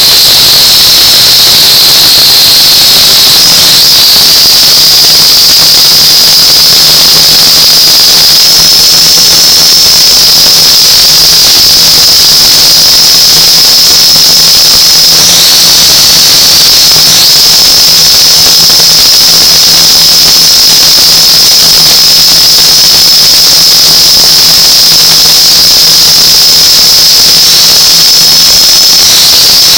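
UDI U818A-1 HD+ quadcopter's motors and propellers whining, picked up by the drone's own onboard camera: a loud, steady high whine over a hiss, with a lower hum underneath. The pitch dips briefly a few times.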